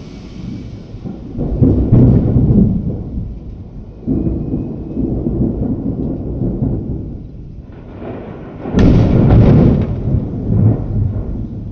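Thunder rolling in long low rumbles that swell and fade, with a sharp, loud clap nearly nine seconds in that rumbles on for a couple of seconds.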